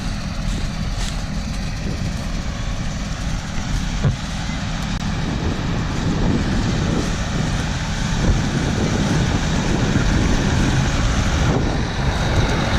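Combine harvester running while harvesting soybeans: a steady low engine drone with a hiss of machinery, growing a little louder about halfway through.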